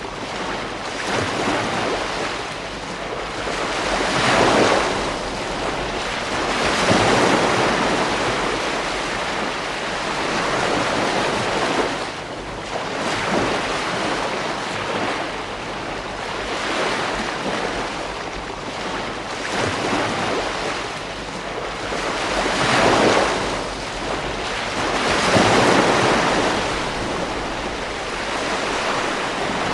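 Ocean waves breaking on a beach, one after another every few seconds, with the wash of surf between them.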